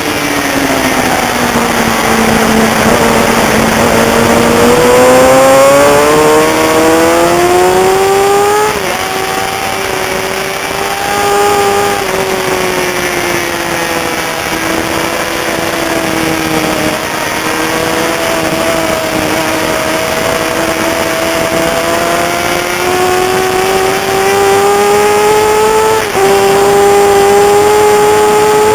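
Sportbike engine at race pace: it runs at high revs and drops early on, then climbs steadily with brief breaks at gear changes, about nine seconds in and again near the end, over a rush of wind noise.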